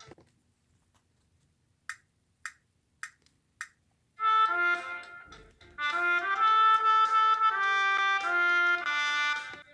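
Four short ticks about half a second apart, then a brass melody of held notes, trumpet-like, in two phrases with a short break between them.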